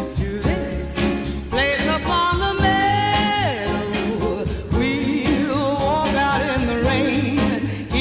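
Background song: a sung melody with long held, wavering notes over a steady drum beat and instruments.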